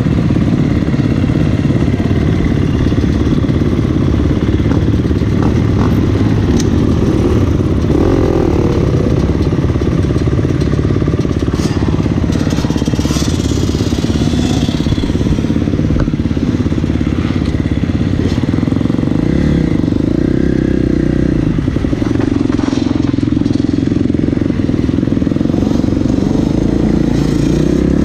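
Motocross bike engine running steadily at low revs as the bike rolls slowly, heard close up from the rider's own machine.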